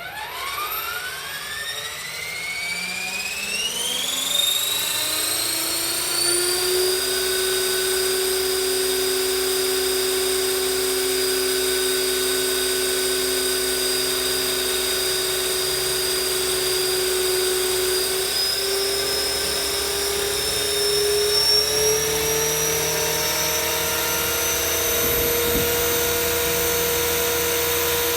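Small electric RC helicopter, a 450-size machine with an MD500E scale body, spooling up: its motor and gear whine rises in pitch and loudness over the first few seconds. It then holds a steady high whine with rotor hum, the pitch stepping up slightly about two-thirds of the way through.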